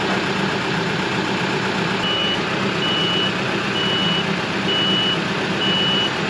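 A heavy machine's engine running steadily, with its reversing alarm starting about two seconds in: evenly spaced high beeps, about one a second.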